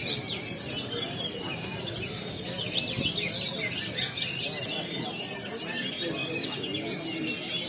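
Several caged contest songbirds singing at once: a dense, unbroken tangle of rapid chirps, trills and sweeping whistled notes.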